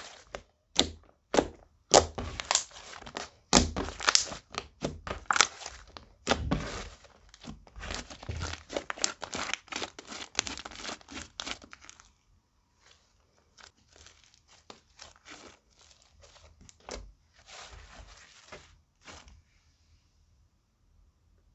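Hands squishing, stretching and folding a thick clear slime mixed with highlighter makeup and glitter, giving a rapid run of sharp, wet clicking pops as trapped air bursts. About halfway through the pops turn fainter and sparser, and they stop shortly before the end.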